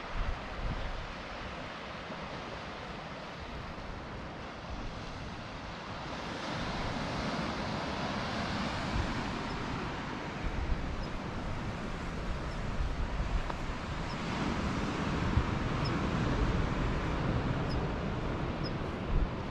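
Wind gusting against the microphone over the steady rushing hiss of ocean surf. It grows louder about six seconds in.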